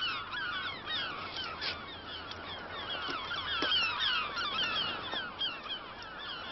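A flock of gulls calling over one another, a steady stream of short squealing cries that glide up and down in pitch.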